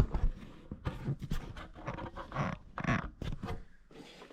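Handling noise from a shop light being turned over: a run of clicks and knocks with a couple of brief scraping or rustling swells.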